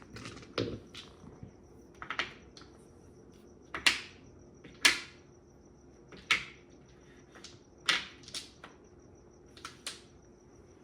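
Mahjong tiles clicking and clacking against each other and the table in irregular sharp knocks as they are handled and set down, the loudest two about four and five seconds in.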